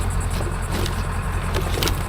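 Steady low rumble of a running vehicle, with a few light clicks and rattles near the end.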